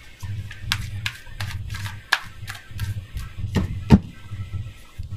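A deck of oracle cards being shuffled by hand: a quick run of soft card slaps and clicks, with one louder knock near four seconds in.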